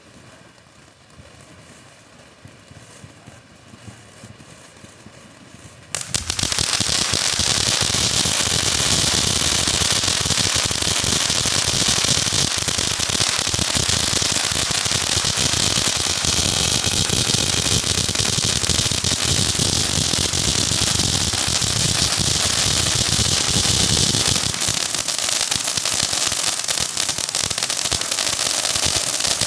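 TNT "Justice" firework going off. After a few quiet seconds it starts suddenly, about six seconds in, into loud, dense, rapid crackling that keeps going without a break.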